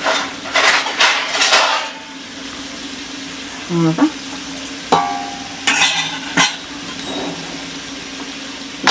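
Metal spatula stirring and scraping diced chayote (chow chow) in an aluminium kadai: several short bouts of scraping in the first two seconds and again around five to six seconds in, with a sharp ringing metal clink about five seconds in.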